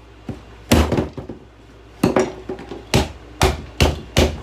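Repeated hard blows striking a 1980s alarm clock, enough to break a button inside it: one heavy blow near the start, then a run of blows about twice a second in the second half.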